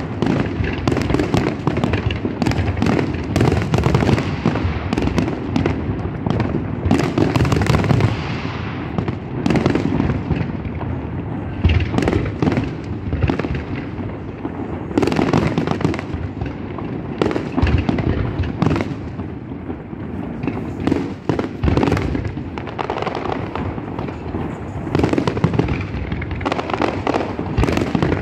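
Fireworks display: aerial shells bursting in a rapid, dense barrage, the bangs overlapping with hardly a break.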